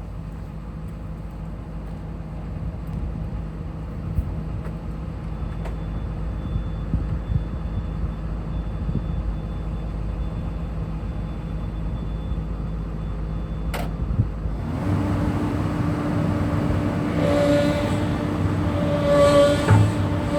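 Komatsu PC240LC-11 excavator's diesel engine running steadily. About fifteen seconds in, a click is followed by a louder, fuller sound with a whine on top as the hydraulic functions are worked. The hydraulic noise is one the owner thinks sounds like a dry pump or a pump with issues.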